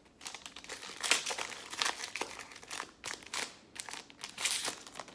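Crinkling of a trading-card pack's plastic wrapper as it is opened and handled, an irregular run of sharp crackles.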